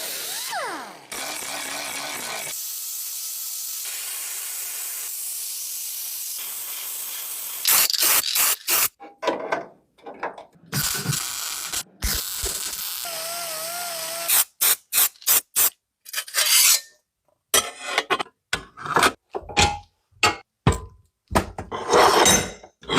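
A steady hiss for about six seconds, then a long run of short, irregular clicks and knocks.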